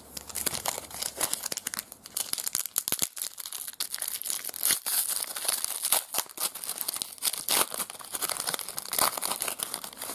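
Foil trading-card pack wrapper being torn open and crinkled by hand: a dense, irregular crackling rustle of thin metallic film.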